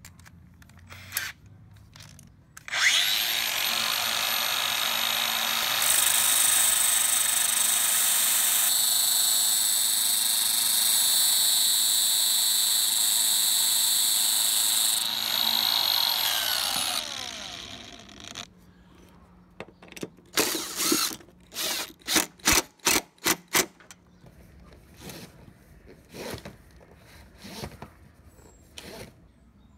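Cordless angle grinder with a flap disc spins up about three seconds in and runs steadily. A harsher high grinding hiss is added while a screw head, turning in a cordless drill, is ground down against the disc, and then the grinder winds down. A cordless drill then runs in a string of short trigger bursts, driving the reduced screw into its hole.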